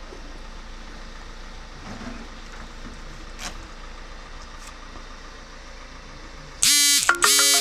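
A steady engine-like hum runs in the background. Near the end, a sudden much louder sound with many pitched overtones cuts in, breaks off briefly, and comes back.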